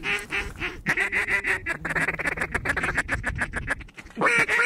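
Duck calling with loud, close quacks, then a fast chattering run of short calls from about one second in to nearly four seconds, then more quacks near the end, meant to pull an approaching flock of ducks into the decoys.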